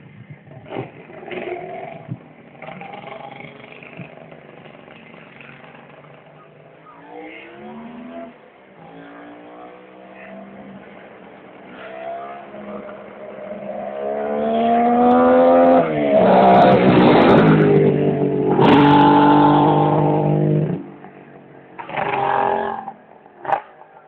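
Kawasaki H2A 750SS Mach IV air-cooled three-cylinder two-stroke motorcycle accelerating up the road, its engine note climbing in pitch through several gear changes as it draws nearer. It is loudest when it passes close in the second half, followed by one more short burst of throttle.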